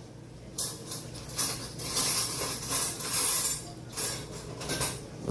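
A kitten scuffling and scratching in rough play: irregular rustling, scraping bursts, several a second at times, with no calls.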